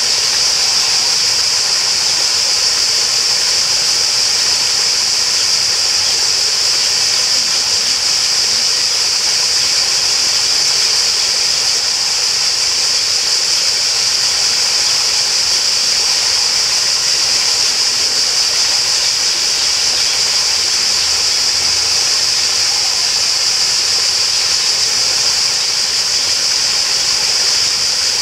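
Flowing water rushing steadily, with a constant high-pitched drone over it.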